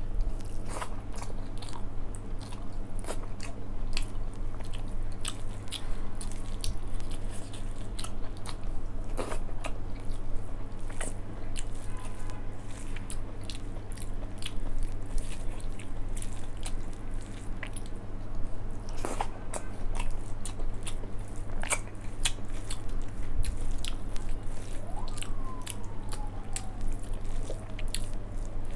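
Close-up eating sounds: a person chewing mouthfuls of rice, dal and soya chunk curry, with many short wet mouth clicks scattered throughout, and fingers mixing rice and dal on a steel plate.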